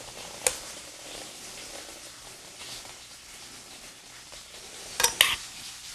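Faint, steady sizzle of food frying in a pan, with a sharp knock of a pan or utensil about half a second in and a couple of quick clinks near the end.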